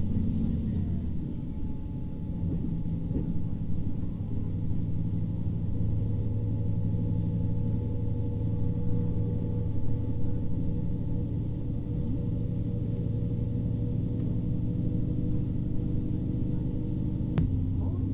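Diesel railcar running, heard from inside the carriage: a steady engine drone with wheel and track rumble beneath it, and one sharp click near the end.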